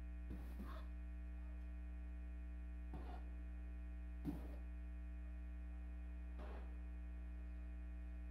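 Steady electrical mains hum, with a few faint, brief sounds over it, the sharpest a click about four seconds in.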